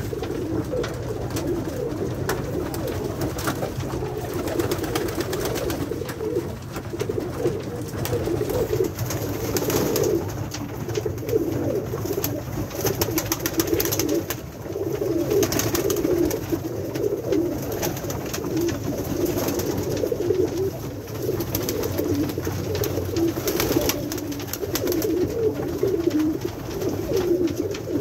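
Several Pakistani high flyer pigeons cooing continuously, their calls overlapping in a low warbling chorus, in a small wooden loft.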